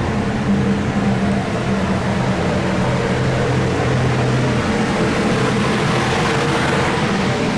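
Range ventilation fan running steadily: an even rushing noise with a low hum, one hum tone dropping out a little past halfway.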